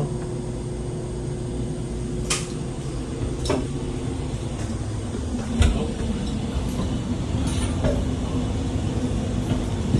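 Steady rumble and hum of building ventilation equipment running, with a few sharp clicks scattered through it.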